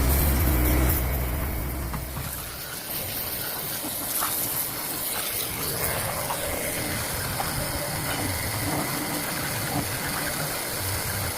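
Steady loud hiss of a high-pressure cleaning jet blasting the cylinder head to clear away the lapping compound, with a heavy low rumble in the first couple of seconds that then fades.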